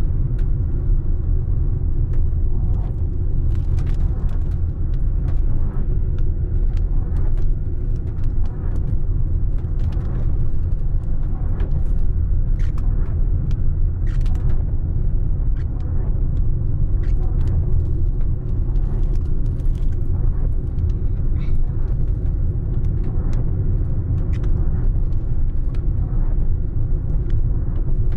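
Inside a moving car: steady low rumble of engine and tyres on a wet road, with irregular light ticks of raindrops hitting the windscreen and roof.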